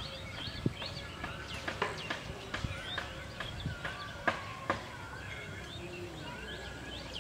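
Several birds chirping and calling with short whistled notes. A few sharp clicks or taps stand out, the loudest about four seconds in.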